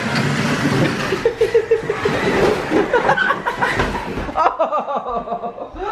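People laughing and chuckling over the noise of a large electric RC monster truck driving across a tile floor, towing a plastic sled that scrapes along behind it.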